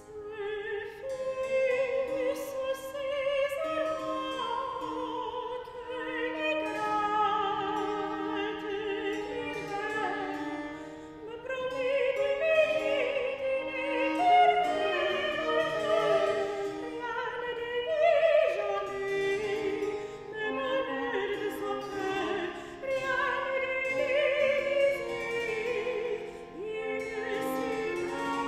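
Soprano singing a French Baroque cantata in French with vibrato, accompanied by baroque viola and harpsichord; the voice and ensemble come in strongly about a second in.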